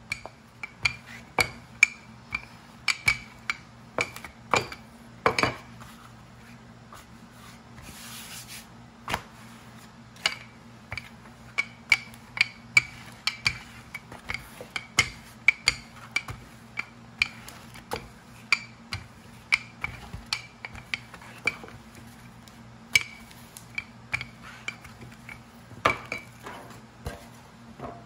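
Wooden rolling pin rolling out pie-crust dough on a floured pastry mat: irregular clacks and knocks, one or two a second, each with a short ring.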